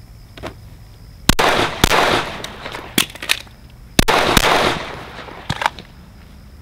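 Five 9mm pistol shots, fired unevenly over about three seconds, each followed by a long rolling echo.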